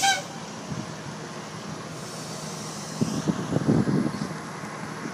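Heavy-duty wrecker tow truck's diesel engine running steadily. From about three seconds in, wind buffets the microphone in irregular gusts.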